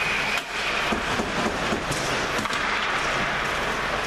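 A referee's whistle blast ends about half a second in, signalling a stoppage of play. Then comes the steady hiss of an indoor ice hockey rink, with scattered sharp knocks.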